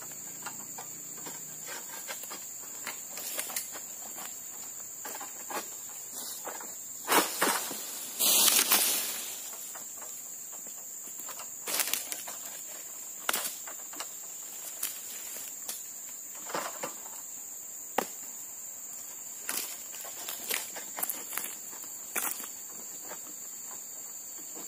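Scattered sharp knocks and scrapes of a pole sickle (egrek) cutting into an oil palm's fronds, and about eight seconds in a cut palm frond crashing down through the leaves to the ground in a rush lasting about a second. A steady high insect drone runs under it all.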